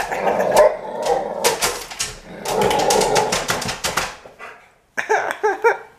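A dog clawing and scratching rapidly at window glass, then giving short, high whining yelps near the end.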